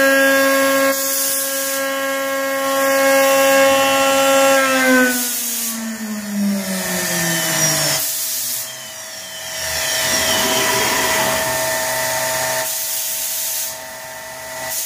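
CNC router's 10 HP spindle running at speed with a steady whine, then spinning down with a falling whine about five seconds in. Bursts of air hiss follow as the automatic tool changer returns the tool.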